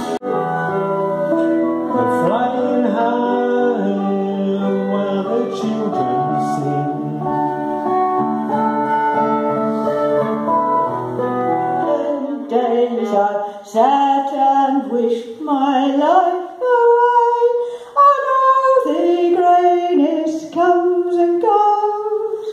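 Several guitars playing a song together, with steady chords and low bass notes. About twelve seconds in this gives way to a woman singing unaccompanied, her voice sliding between notes.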